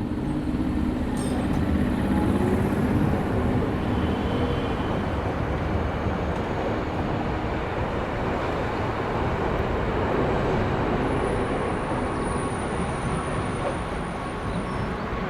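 Train running with a steady rumble and some low hum early on; a thin high whine comes in about two-thirds of the way through and stops shortly before the end.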